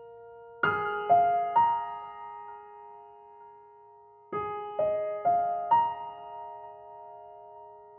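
Soft, slow background piano music: single notes ringing out and fading, three in a row about a second in, then four more after a pause.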